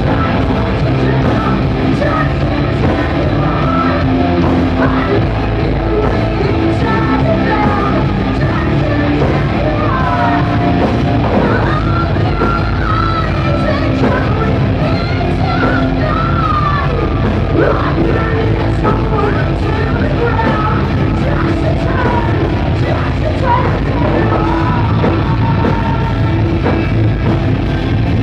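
A live hard rock band playing loudly: distorted electric guitars, bass guitar and a drum kit, with a female lead singer's sung and shouted vocals over them.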